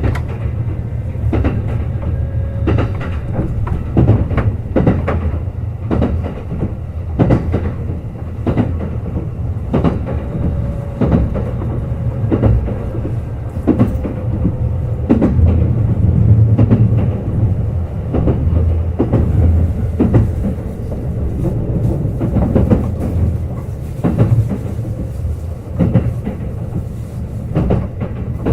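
Kintetsu 21000-series Urban Liner Plus limited express running at speed: a steady low rumble, with the wheels clicking over rail joints about once a second.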